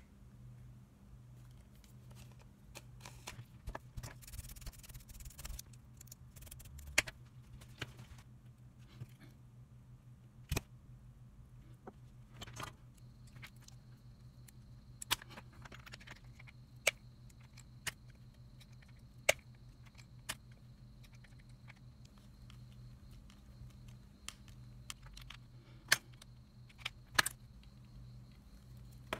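Small plastic and metal slot-car parts clicking and tapping in the hands as a wheel axle and motor are fitted into the chassis: scattered sharp clicks, some a second or more apart, over a steady low hum.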